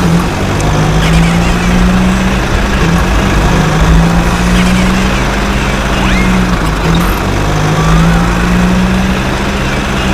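Radio-controlled construction vehicle running, a steady motor hum at one pitch that dips briefly every couple of seconds, over a loud noisy background.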